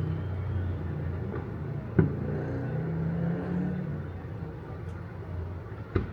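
Two sharp firework bangs about four seconds apart, over a steady low rumble.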